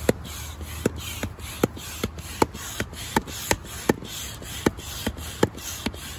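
Hand pump inflating an inflatable kayak's side pontoon through its hose: a steady rhythm of pump strokes, a short sharp click about two and a half times a second over a rushing hiss of air.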